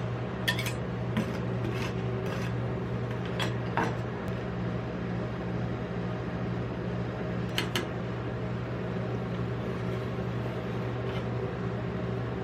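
Metal spatulas tapping and scraping on the frozen steel plate of a rolled ice cream stand, a few sharp clicks mostly in the first few seconds and a pair about two thirds of the way in, over a steady machine hum.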